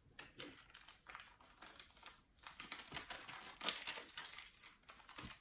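Plastic Panini Prizm trading-card pack wrapper crinkling as it is handled, in irregular bursts with a short pause about two seconds in.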